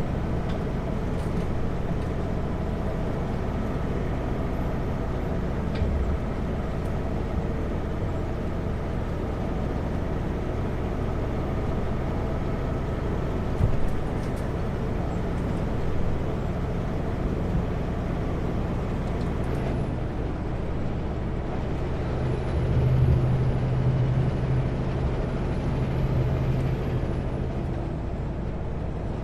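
Kenworth W900L semi truck's diesel engine running steadily with road noise, heard inside the cab while driving. The low engine hum grows louder for a few seconds about three-quarters of the way through, with a few light knocks along the way.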